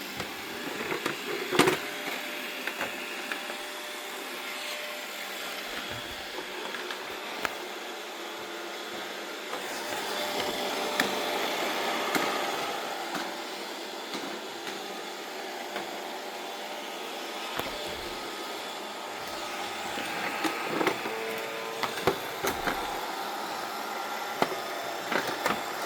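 Robot vacuum cleaner running with a steady whir, with a few light knocks and clicks. It gets louder for a few seconds partway through.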